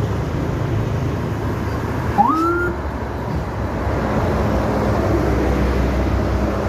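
Road traffic with vehicle engines running steadily. A short rising tone sounds a little past two seconds in.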